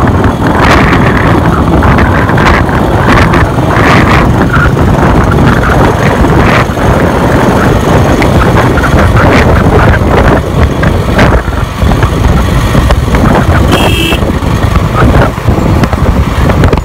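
Royal Enfield motorcycle on the move, its engine running under loud, gusty wind rush on the microphone. A brief high tone sounds near the end.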